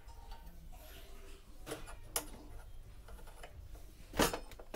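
A few light clicks and knocks of metal hooks being handled on a wall-mounted kitchen utensil rail, with one louder knock about four seconds in.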